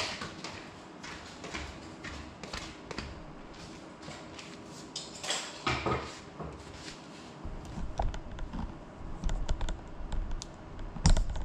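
Scattered light clicks and knocks, irregularly spaced, with a low rumble joining in about halfway through.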